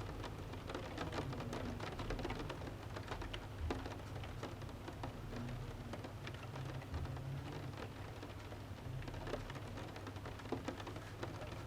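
Rain falling on a window pane: a steady patter with many small, irregular drop taps over a low rumble.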